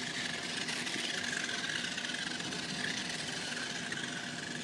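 Toy remote-control cars' small electric motors and plastic gearboxes whirring steadily as they drive.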